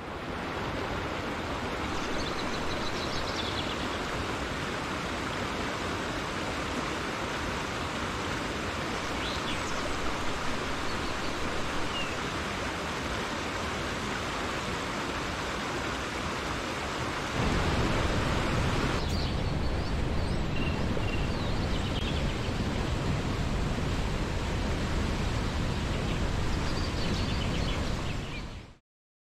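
Steady rush of water spilling over a dam, an even noise with a few faint high chirps over it. About two thirds of the way in it becomes fuller and deeper, and it cuts off suddenly near the end.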